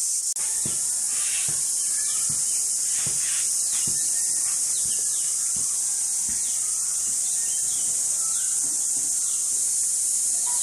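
Steady shrill drone of insects, the 'kirr' sound of a Konkan morning, with birds chirping over it in short, repeated falling calls. Low soft thumps come about once a second through the first part.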